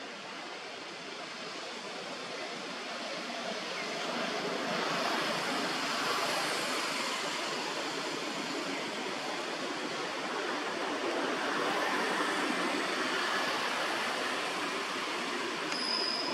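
Steady rushing outdoor background noise that grows louder a few seconds in and swells again later, with a brief high chirp near the end.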